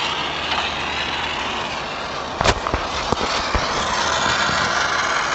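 Steady hiss of an oxy-fuel brazing torch, with one sharp metal knock about two and a half seconds in and a few lighter taps after it.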